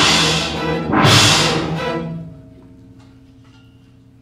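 Orchestra playing two loud accented full chords about a second apart, which fade out about two seconds in to a soft, steady held low string chord.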